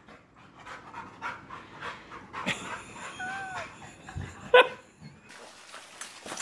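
Dog panting as it shuffles on carpet, with light laughter from people and one short, sharp, loud sound about four and a half seconds in.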